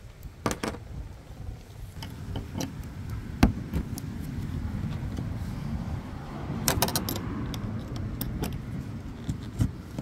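Metal hood-pin clips and the chrome hood pin being handled: a string of sharp metallic clicks and clinks, the loudest about a third of the way in and a quick cluster a little past the middle, over a low steady rumble.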